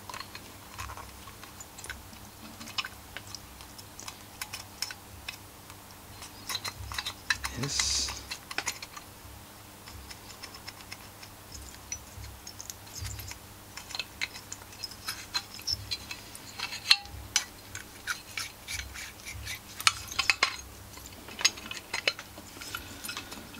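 Many small scattered clicks and light metal scraping from hand-held engine parts: the Stihl FS51's piston, its rings compressed, being worked into the cylinder.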